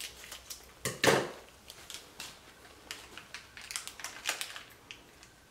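Crinkling and rustling of a small yeast packet being handled: scattered sharp crackles and clicks, the loudest about a second in.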